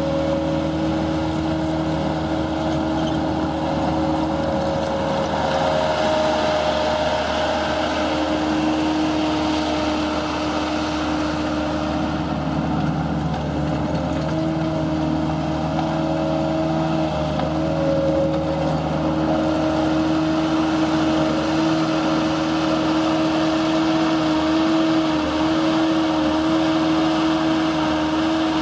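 Case 450CT skid steer loader's diesel engine running steadily at a constant speed, with a steady hum and a slightly wavering tone.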